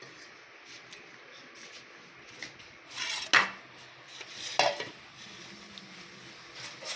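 Spoon and dishes clinking against a bowl as spices are added to a mashed potato mixture, with two louder clattering knocks about three and four and a half seconds in.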